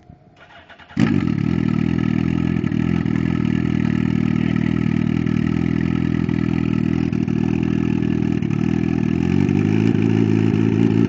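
Turbocharged Suzuki Hayabusa inline-four motorcycle engine starting: the starter cranks briefly and the engine catches about a second in, then settles into a steady idle that picks up slightly near the end.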